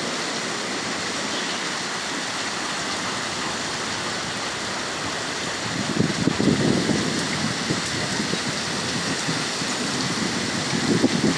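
Rain falling steadily in a thunderstorm, an even rushing hiss, with a louder, lower patch about six seconds in and again near the end.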